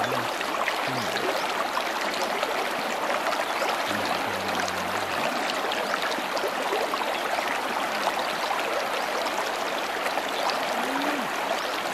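Shallow river running over a stony bed, a steady rushing babble of water.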